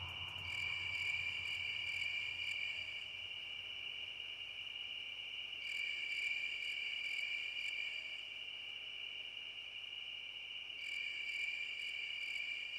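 Insects calling in a steady, high-pitched drone, swelling with a faster pulsing about every five seconds.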